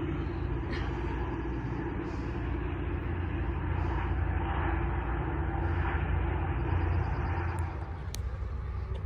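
Caltrain diesel locomotive approaching the station, a steady low engine and rail rumble that eases slightly near the end.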